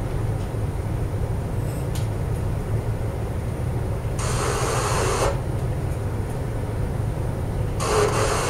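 Steady low drone of a supply vessel's machinery, with a brief stretch of added hiss about four seconds in.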